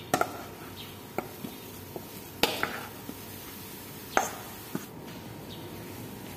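Wooden spatula knocking and scraping against a steel bowl and a non-stick pan as grated carrot is pushed out of the bowl into the pan. There are about five sharp taps, a second or so apart, and the loudest come about two and a half and four seconds in.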